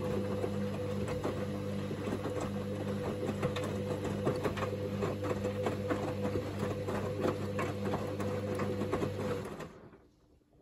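Hoover DynamicNext washing machine in its main wash: the drum motor hums steadily while the laundry tumbles in the drum with a stream of irregular clicks. The drum stops near the end and the machine falls quiet.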